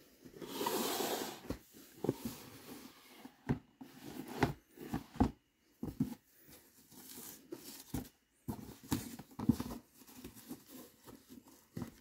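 Cotton-gloved hands handling a large cardboard gift box and its ribbon: a soft brushing swell in the first second or so, then scattered light taps, scrapes and rustles of gloves on card.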